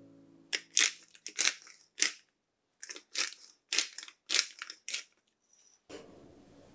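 A pepper mill grinding black pepper: about ten short crunching strokes in irregular clusters, twist by twist, stopping about five seconds in.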